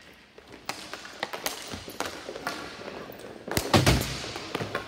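Ball hockey play: sticks cracking against the ball and the court surface in a quick, irregular run of sharp knocks, with the loudest bang about three and a half seconds in.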